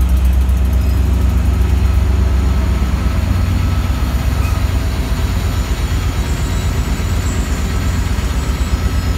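The diesel engine of an EMD F40PH locomotive running at low throttle as the locomotive rolls slowly past and nearly stops: a loud, steady deep drone that eases a little about three seconds in.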